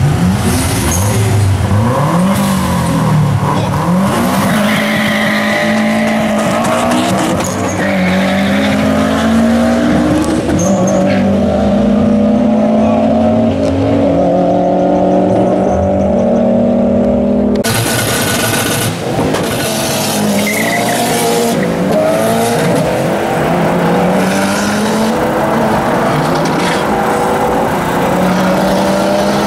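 Two street cars, a Subaru among them, launching and accelerating hard down a drag strip. Their engines rev up through the gears, the pitch climbing and then dropping at each shift, again and again.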